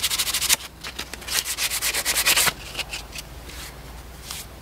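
100-grit sandpaper being rubbed by hand along a hardwood axe handle in quick back-and-forth strokes. One run of strokes stops about half a second in, a second runs for about a second, and then a few lighter strokes follow.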